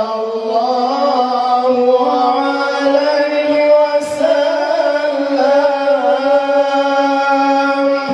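Two men singing a sholawat, praise of the Prophet, as a duet into handheld microphones: long, high held notes with ornamented, wavering bends.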